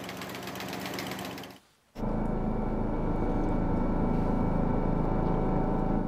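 Small rice-harvesting machine running as it cuts rice stalks, its engine and cutter clattering rapidly and evenly. After a brief break about two seconds in, a louder, steady engine drone takes over.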